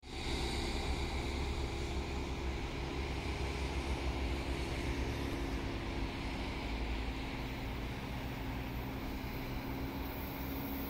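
Steady low rumble of distant vehicles, with a faint steady hum and no sharp events.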